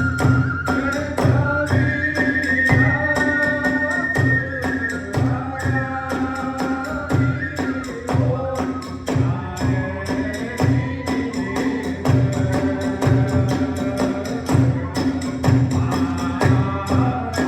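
Kagura hayashi music: a bamboo flute plays held, sliding melody notes over repeated drum strokes and a fast, constant clashing of small hand cymbals.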